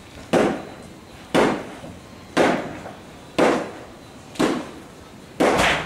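Heavy blows struck on wood about once a second, six in all, the last two close together, as the old timber roof is demolished.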